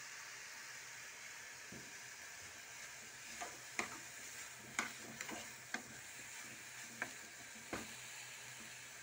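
Metal spoon stirring jiló sautéing in a pot on a gas burner, clinking against the pot about eight times between roughly three and eight seconds in, over a steady hiss.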